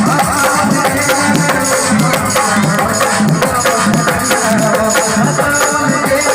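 Live devotional band music with a steady drum beat: loud, amplified instruments and tabla-like hand-drum strokes.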